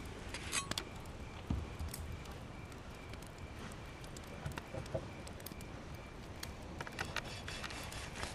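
Seared flat iron steak laid down on a wooden cutting board, with a soft thud about a second and a half in. Scattered light clicks and knocks sound over a steady low background hiss.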